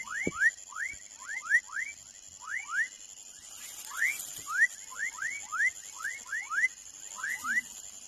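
Frog calling: short chirps that each rise quickly in pitch, often in quick pairs, about twenty of them, over a steady high whine.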